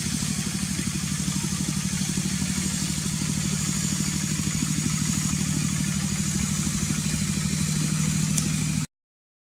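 An engine running steadily with an even, rapid pulse, cutting off suddenly near the end.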